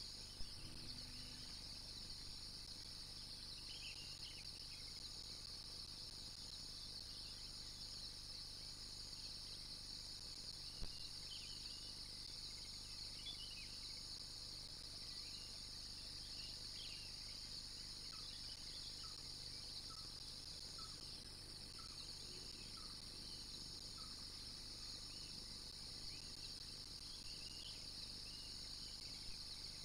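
Steady, high-pitched chorus of insects, with scattered bird chirps over it and a run of short bird notes about once a second past the middle.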